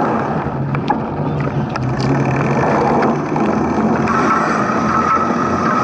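Steady wind and rolling noise from a mountain bike being ridden, with a couple of light clicks about one and two seconds in.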